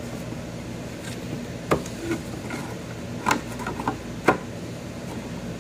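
Short hard plastic clicks and taps from a Bridgeport Torq-Cut 22 tool changer's plastic carousel and tool-holder finger as the new finger is handled and fitted into place: three sharper clicks a second or so apart with a few fainter ones between, over a steady low hum.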